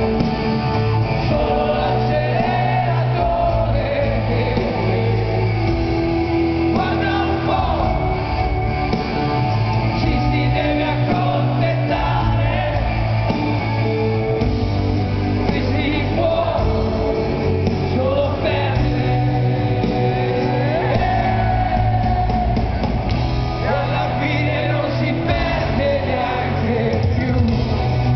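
Live rock band with a male lead singer in concert, heard from among the audience in an arena: a steady bass and drums under electric guitar, with the sung melody on top.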